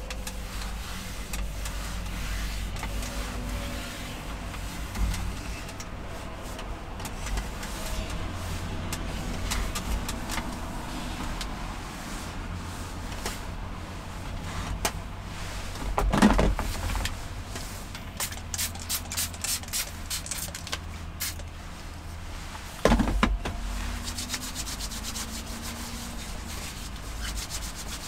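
A paper towel rubbed across a wooden tabletop, over a steady low rumble, with two loud knocks, one a little over halfway through and one near the end, and a quick run of clicks between them.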